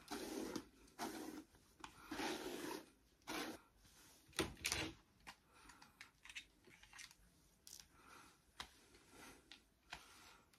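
A hairbrush is drawn through long straight hair in about four rushing strokes. A soft knock follows, then faint clicks and rustles as the hair is handled.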